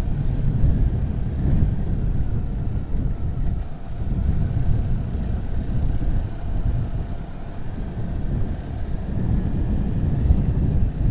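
Riding a motorcycle at a steady cruise: wind rushing over the microphone, with the motorcycle's engine running underneath.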